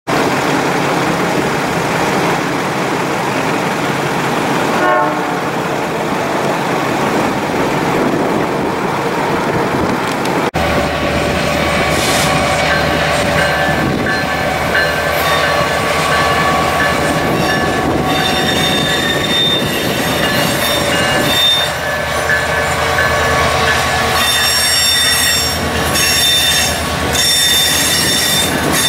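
Strong wind on the microphone with a distant freight train at first. About ten seconds in, the Canadian Pacific diesel locomotive rumbles past close by, and the freight cars behind it roll by with steady high-pitched wheel squeal that grows louder toward the end.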